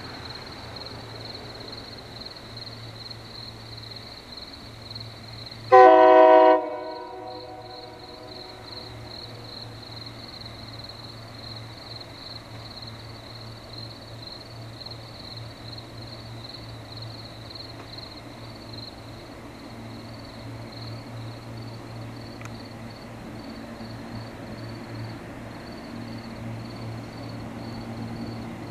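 SEPTA Silverliner V electric train sounding one short horn blast, a chord of several tones under a second long, about six seconds in, as it approaches the station.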